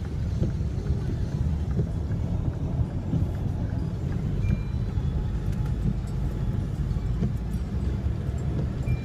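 Steady low rumble inside a car cabin as it drives through a flooded road, the engine and tyres pushing through standing water.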